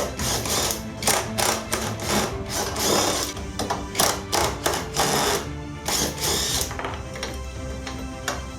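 Background music with a steady pitched accompaniment, over irregular sharp clicks and knocks of mechanical clatter.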